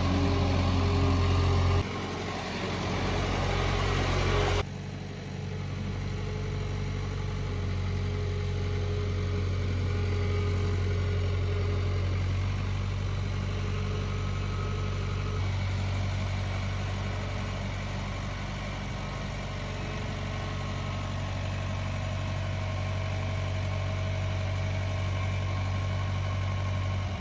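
Engine running steadily at an even speed, with two abrupt changes in its sound in the first five seconds.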